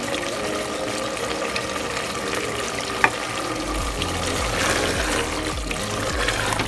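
Wooden spatula stirring a wet, gravy-laden potato and cluster-bean curry in an open aluminium pressure cooker, with a sharp tap of the spatula against the pot about three seconds in and a steady hum underneath.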